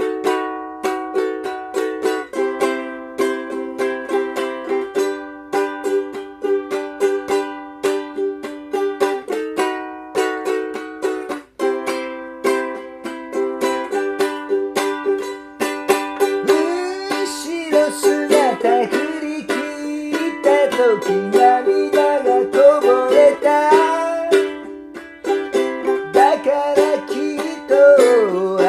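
Ukulele strumming chords in a steady rhythm. About halfway through, a singing voice joins with a wavering melody, then drops out before the strumming carries on alone.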